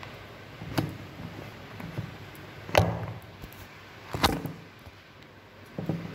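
Handling noise from a phone being moved about while it records: four dull knocks about one to two seconds apart, the middle two the loudest.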